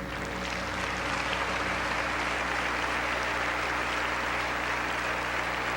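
Audience applauding, steady and slightly swelling, as a song ends in a live theatre.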